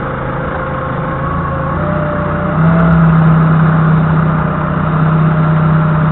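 Doosan 4.5-tonne forklift's engine running, heard from the cab. Its speed steps up about two seconds in and again shortly after, and then it holds steady at the louder, higher note.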